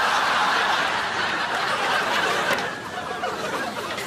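Studio audience laughing: a big wave of laughter, at its fullest for the first two or three seconds, then slowly dying away.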